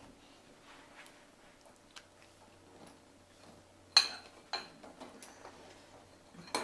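Tableware being handled while a dishwasher is emptied: faint small knocks, then a sharp ringing clink about four seconds in and a second clink half a second later.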